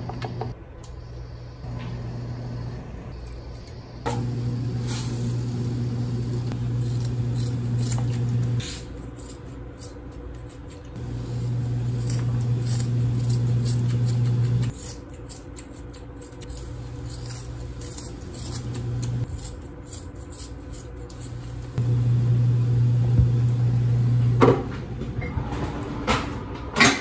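A steady low hum that cuts in and out abruptly several times, with scattered light clicks and rattles on top and a few sharper knocks near the end.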